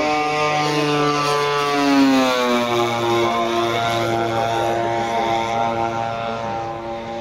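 Twin turboprop engines of a radio-controlled scale model FMA IA 58 Pucará on a low pass. A steady whine whose pitch drops as the plane flies by, about two seconds in, where it is loudest.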